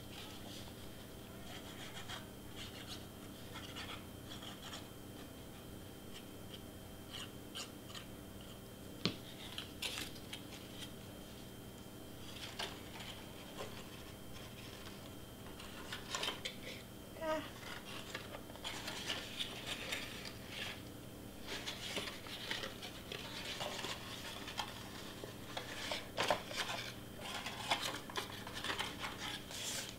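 Faint scattered rustles, taps and scrapes of folded cardstock being handled and pressed together while its tabs are glued, more frequent in the second half, over a low steady background hum.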